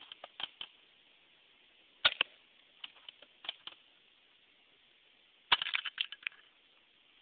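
Scattered sharp clicks and small clatters: a few at the start, a louder cluster about two seconds in, single ticks after it, and a busier run of clicks between about five and a half and six seconds.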